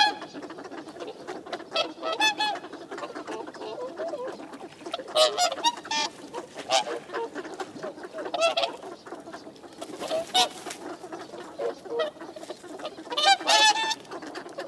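Whooper swans calling: short honking calls every second or two from several birds, with the loudest bursts about five and thirteen seconds in, over a steady background noise from the flock.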